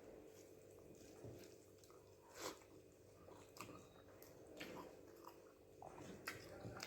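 A person chewing rice and gravy close to the microphone, with faint, scattered wet mouth smacks and clicks and one sharper smack about two and a half seconds in.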